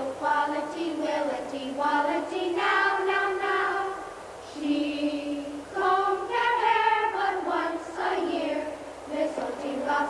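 A choir of children's voices singing a simple tune with held notes, dipping briefly in level about four seconds in.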